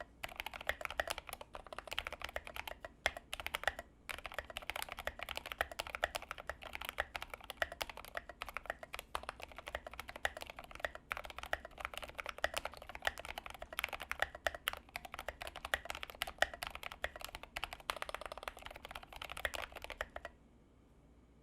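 Typing on a Tokyo60 mechanical keyboard with Gateron White 60g linear switches: a rapid, steady run of key clacks with a few short pauses, stopping shortly before the end.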